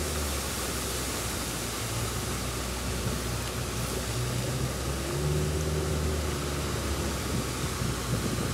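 Small boat's outboard motor running steadily at cruising speed, a low hum under an even rushing hiss.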